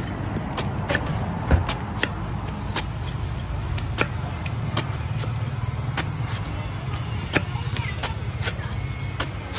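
Large knife chopping and shaving the husk off a green coconut: irregular sharp cuts about two a second, two louder ones about one and a half seconds in and near the end, over a steady low rumble.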